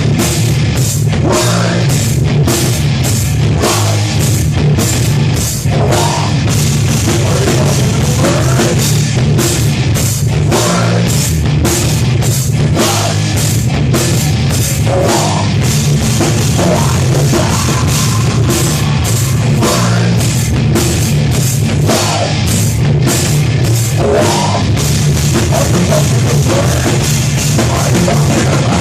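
Heavy metal band playing: distorted electric guitar and bass over a drum kit with frequent cymbal crashes.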